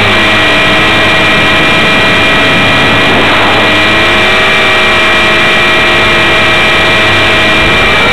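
450-class RC helicopter's motor and rotor whine heard from a camera mounted on the helicopter, loud and steady. The pitch drops just at the start, holds with small wavers, and rises again near the end as the rotor speed changes during manoeuvres.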